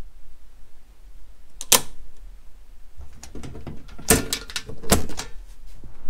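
Sharp clicks and knocks at a household circuit breaker panel as it is handled and a breaker is switched back on to restore power to the air conditioner: one knock about two seconds in, then a quick cluster of clicks a couple of seconds later.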